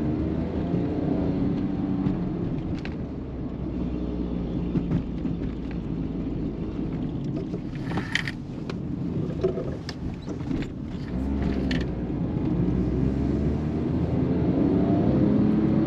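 Smart car's small engine and road noise heard from inside the cabin as the car turns slowly through a parking lot, then pulls out onto the road with the engine note rising as it accelerates. A few short clicks and knocks come in the middle.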